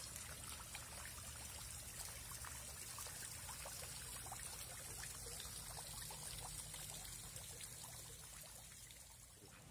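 Water from a stone fountain trickling and splashing into its pond, a steady patter of small drips and splashes that grows fainter near the end.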